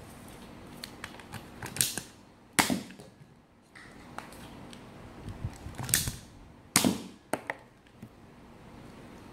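A spring-powered Nerf dart blaster being handled and shot. Small plastic clicks are followed by two pairs of loud, sharp snaps about four seconds apart, each pair under a second long.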